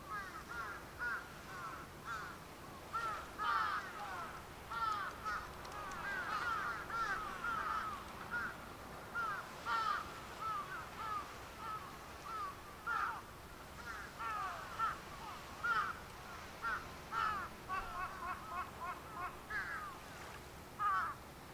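A flock of birds calling: many short calls overlapping, several a second, without a break.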